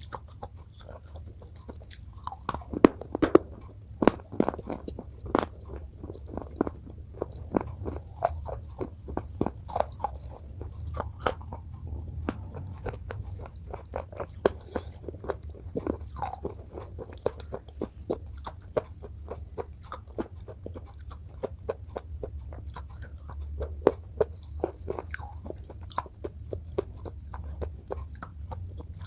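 Close-miked biting and chewing of something hard and brittle, with many sharp crunches throughout, the loudest a few seconds in. A steady low hum runs underneath.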